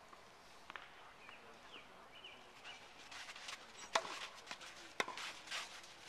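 Tennis ball struck by rackets during a rally: two sharp hits about a second apart, roughly four and five seconds in, with shoes scuffing on the court around them.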